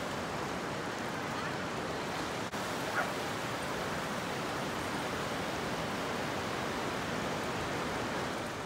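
Ocean surf breaking in a steady hiss, with a dog barking once briefly about three seconds in.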